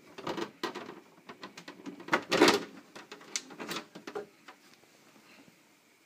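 Plastic housing of a dehumidifier being handled and opened up: a string of knocks, clicks and scrapes, the loudest about two and a half seconds in, dying away after about four seconds.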